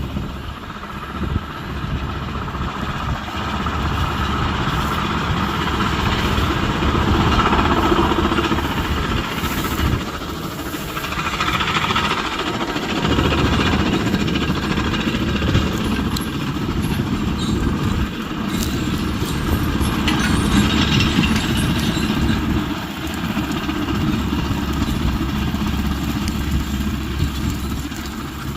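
Heavy vehicle engine running with a steady low rumble, swelling and easing in loudness over several seconds.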